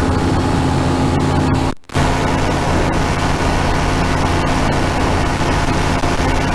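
Powered parachute's engine and propeller running steadily at cruise, heard from the pilot's seat. The sound cuts out briefly for a fraction of a second just under two seconds in, then resumes unchanged.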